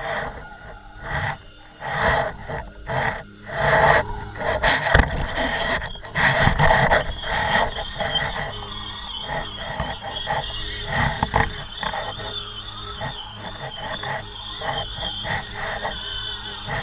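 Wind buffeting the microphone of a kite-lifted camera, in irregular gusts that are loudest in the first seven seconds and settle to a steadier rush after, with a steady high whine underneath.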